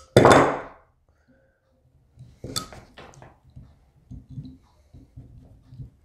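Handling noise of metal and wire: a loud clatter right at the start, a cluster of sharp clinks and clicks about two and a half seconds in, then faint low knocks, as pliers and bundled wires knock against a drill-mounted wire stripper head.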